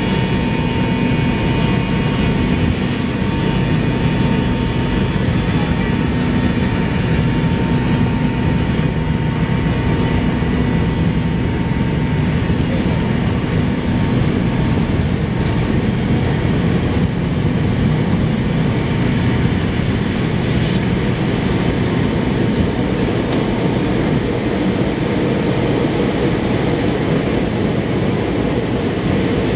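Cabin sound of a McDonnell Douglas MD-88 on its takeoff roll: the rear-mounted Pratt & Whitney JT8D turbofans running at takeoff thrust, a loud steady roar with a few steady whining tones over it, as the jet accelerates down the runway to liftoff.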